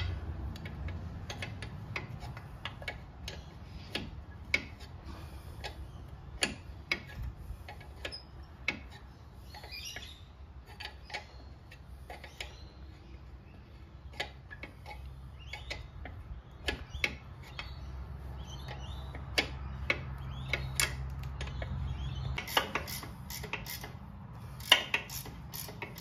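Sharp metallic clicks, about one a second, from hand-working the track idler adjuster of a mini excavator to tension a new rubber track. A low steady hum runs beneath and stops near the end, where the clicks come quicker and louder.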